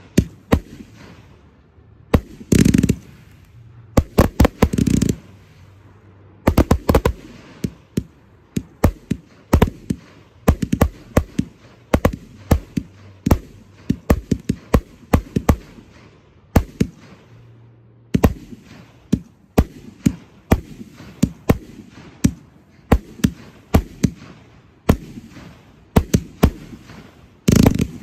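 Aerial fireworks display: an irregular string of sharp bangs from shells bursting, roughly one to three a second, with a few longer, denser bursts among them.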